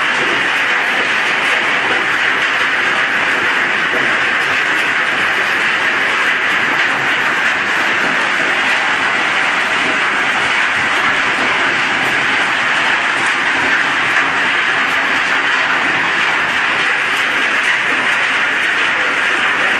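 Scrap steel crusher running, a loud, steady metallic clatter and grinding noise with no let-up.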